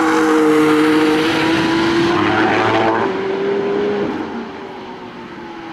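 Mercedes-AMG One's 1.6-litre turbocharged V6 hybrid engine passing at speed on track. Its note climbs slowly, then drops in pitch and fades after about four seconds as the car pulls away.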